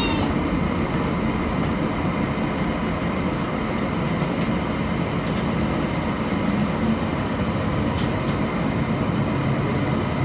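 Steady rumble of a streetcar running along its track, heard from inside the car. Two short clicks sound about eight seconds in.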